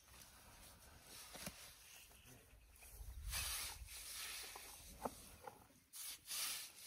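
Young African elephant feeding at a bush: faint rustling and tearing of leaves and grass as her trunk pulls at them, with a few small snaps, a louder rustle about three seconds in and two short bursts of rustling near the end.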